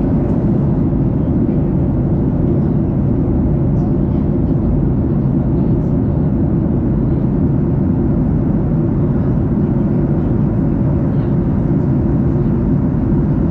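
Steady roar of a Boeing 737-800's engines and airflow heard inside the passenger cabin, an unchanging low rumble.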